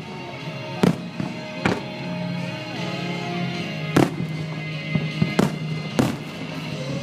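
Aerial firework shells bursting in a string of sharp booms, about seven of them irregularly spaced, the loudest about four seconds in, over music playing steadily.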